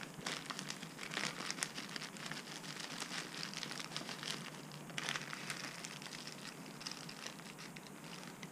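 Small plastic parts bag crinkling and crackling as it is handled and looked into, with a slightly louder rustle about five seconds in.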